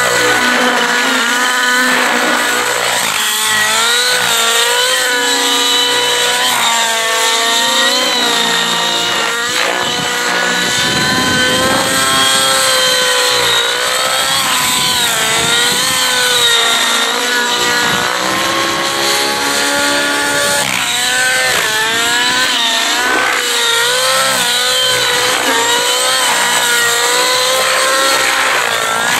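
Nitro RC helicopter (Next-D Rave ENV 90) in aerobatic flight: its glow engine and rotor blades make a loud, high buzzing whine whose pitch keeps rising and falling.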